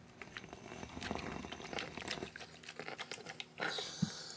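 Clothes iron worked over folded cotton fabric: rustling and light knocks of cloth and iron being handled, then a short hiss and a single sharp knock near the end.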